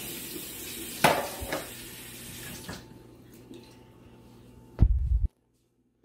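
Kitchen tap running into the sink, with a couple of sharp dish knocks about a second in. The water stops a little before three seconds in, and a loud, low thump follows near the end.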